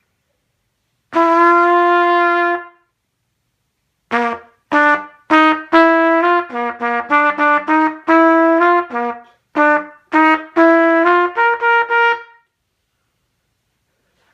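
A freshly reassembled trumpet played to show it works: one long held note, then after a short pause a run of short, separately tongued notes at varying pitches, like a short tune.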